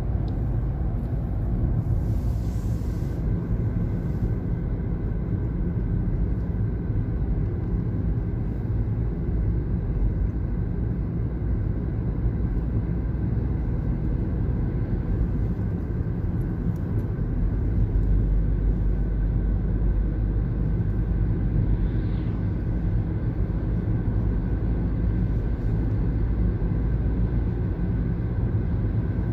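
Steady road and engine rumble of a moving car, heard from inside its cabin, getting a little louder about two-thirds of the way through.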